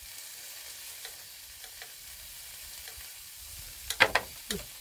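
Meat sizzling in oil in a shallow pan on a small portable stove, a steady hiss, while it is stirred. About four seconds in come a few loud, sharp clatters of the utensil in the pan.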